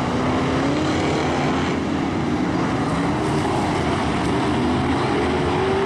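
A pack of BriSCA F1 stock cars' V8 engines running hard together, one engine note rising steadily as it accelerates.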